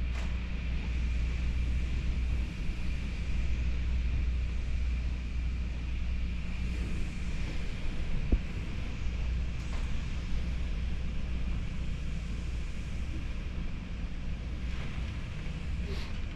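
Tropical-storm wind and rain: a steady low rumble with a hiss of rain over it.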